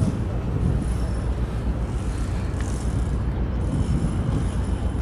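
Steady low rumble of harbour noise: tugboat engines working a large container ship alongside its berth.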